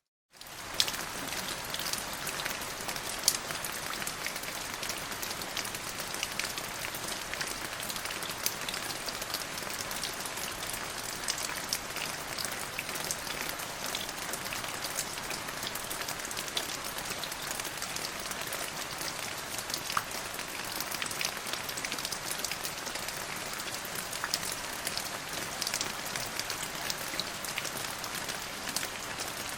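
Steady rain, a dense even hiss with many separate drop hits standing out. It cuts to silence for a moment at the very start, then comes straight back.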